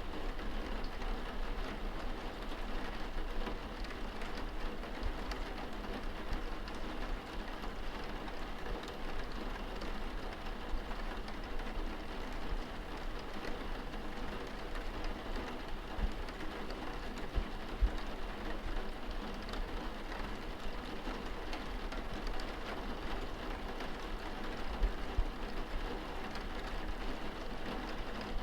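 Steady water splashing and pattering into a bath.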